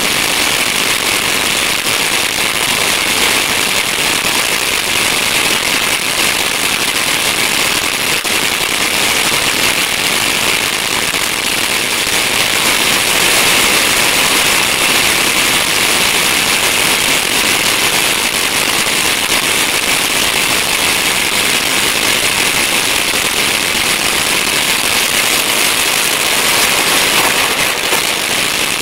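Brothers Pyrotechnics Payback 500-gram firework fountain burning: a loud, steady hissing spray of sparks with dense crackling throughout.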